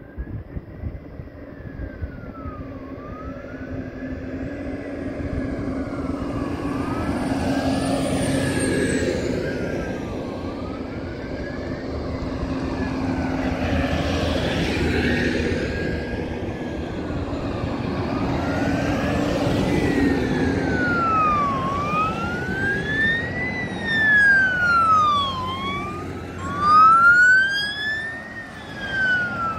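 Fire appliance sirens on a slow wail, rising and falling steadily, with the engine of a fire truck swelling and fading as it drives past. Near the end the wail gets louder and a second siren overlaps it as another vehicle passes close by.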